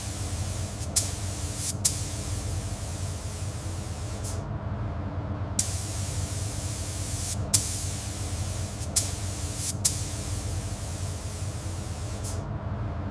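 Steady hissing spray from a pressurised nozzle, cutting out for about a second around four seconds in and again near the end, with a few sharp clicks, over a low steady hum.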